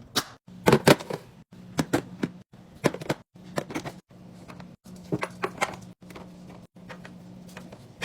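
Snack packages and containers being handled and set into a fridge drawer: a run of sharp clicks, taps and crinkles, about one to three a second, over a low steady hum. The sound cuts off abruptly a few times.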